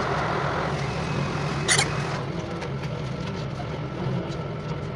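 Running noise inside a city bus: a steady low engine drone with a hiss that fades out about two seconds in, and one short sharp hiss just before that.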